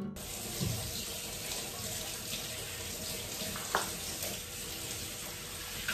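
Kitchen tap running steadily into a stainless steel sink as masala-covered hands are rinsed under it, with one short knock about three and a half seconds in.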